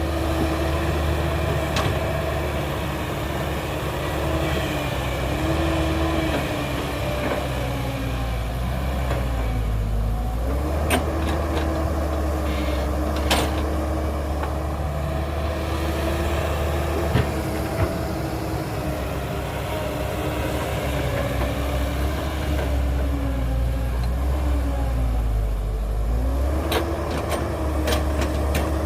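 Heavy diesel machinery engine running under load, its pitch dipping and recovering twice as it lugs. A few sharp metallic knocks come through.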